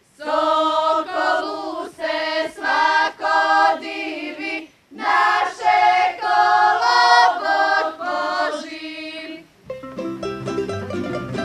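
A group singing a folk song without accompaniment, in sung phrases with short breaks between them. Near the end, plucked string instruments strike up a quick dance tune.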